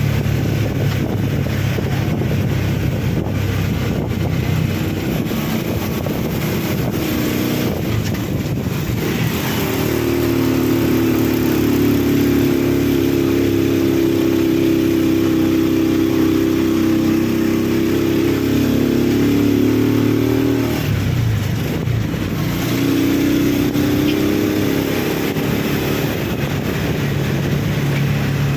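A motor vehicle's engine running under a steady hiss. Its pitch rises about nine seconds in, holds higher for about ten seconds, drops back, then rises again near the end.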